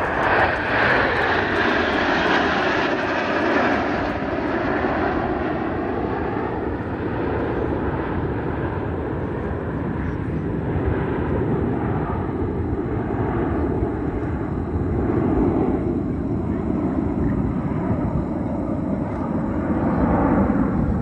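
Nine Red Arrows BAE Hawk T1 jets, each with a Rolls-Royce Turbomeca Adour turbofan, flying overhead in close formation: a loud, continuous jet rush. It is brightest and hissiest in the first few seconds, then settles into a lower rumble with slow slides in pitch and a few swells in loudness.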